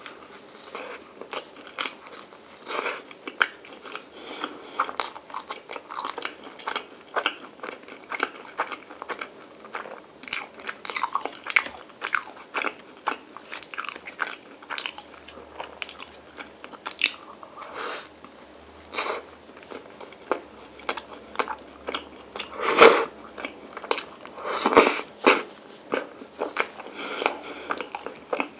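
Close-miked chewing and biting of soft white bread spread with Nutella and vanilla ice cream: many short, irregular wet mouth clicks, with a few louder ones in the last third.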